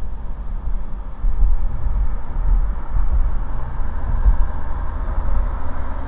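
Car driving on a paved street, heard from inside the cabin: a steady low road rumble, with tyre hiss growing a little louder about halfway through.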